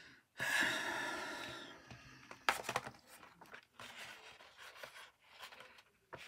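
A long breathy exhale about half a second in, fading away. Then a large sheet of acrylic-painted scrapbook paper is lifted and handled, giving a few sharp crackles and some light rustling and crinkling.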